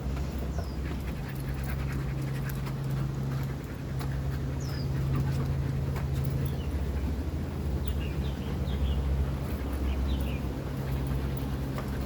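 Husky panting steadily, over a steady low hum, with a few faint clicks and short high bird chirps in the second half.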